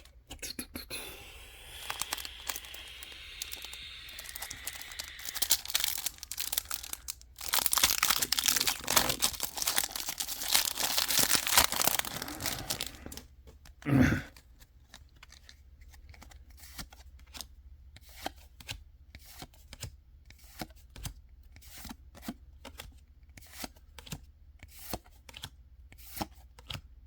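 A foil Pokémon card booster pack crinkling and being torn open, loudest for several seconds in the middle, then a single short thump. After that, only sparse light clicks as the cards are handled.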